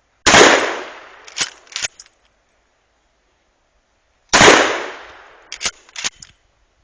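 Two shotgun blasts about four seconds apart, each trailing off in a short echo, and after each one the pump-action being worked back and forward with two or three sharp clacks.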